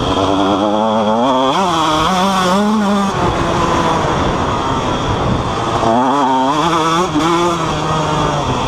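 KTM 125 SX two-stroke single-cylinder engine running hard under throttle while riding, its pitch climbing and dropping as the throttle opens and closes, with two main climbs.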